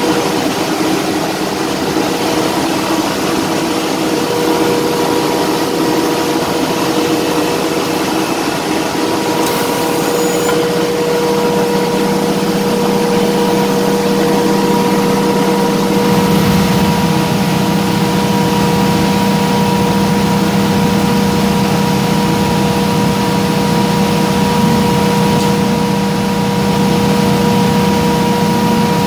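Ship's engine-room machinery running steadily, a loud mechanical din with two steady whining tones over it. About a third of the way in a low hum comes in, and just past halfway a deeper rumble grows louder and holds.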